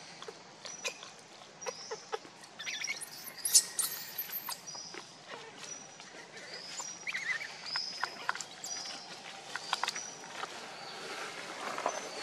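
Dry leaf litter rustling and crackling as macaques shift and move about on it, under scattered short high chirps and squeaks. A longer high squeal comes about three to four seconds in.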